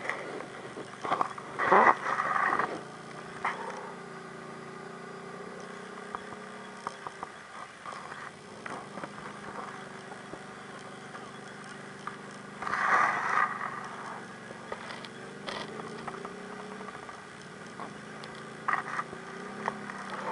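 ATV engine running at a steady speed, with two short louder bursts, one about two seconds in and one a little past the middle.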